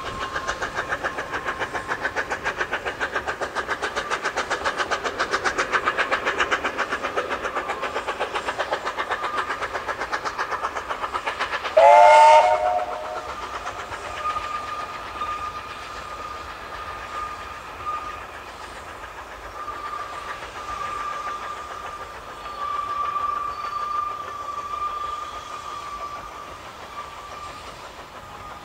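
NG/G16 Garratt steam locomotive working its train with quick, even exhaust beats, which fade out about 11 seconds in. It then gives a short, loud whistle blast of several pitches at once, after which the train runs on more quietly with a thin squeal that comes and goes.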